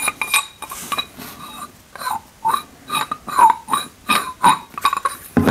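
Machined aluminium parts being handled: an aluminium tube sliding and turning inside an aluminium valve block, giving a string of light metallic clinks and short squeaky scrapes.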